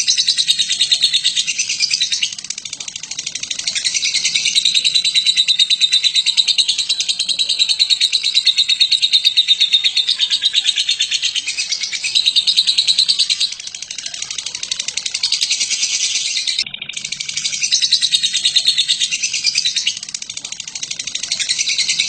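Batman lovebird giving its long 'ngekek' song: long, unbroken bouts of rapid, high-pitched chattering, broken only by a few short pauses.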